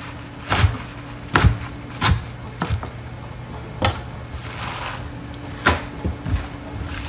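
Knife chopping leafy greens on a plastic cutting board: single sharp knocks at uneven intervals, spaced from about half a second to two seconds apart, over a steady low hum.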